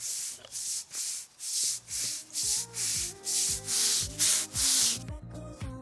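Rhythmic scrubbing strokes of an applicator spreading a second coat of sealer over imprinted concrete, about three strokes a second, stopping shortly before the end. Background music comes in about two seconds in.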